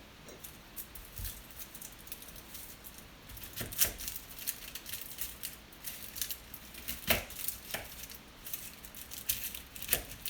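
Dry onion peelings crinkling and rustling as they are handled and dropped into a pot, with scattered sharp clicks and knocks, the loudest about 4 and 7 seconds in.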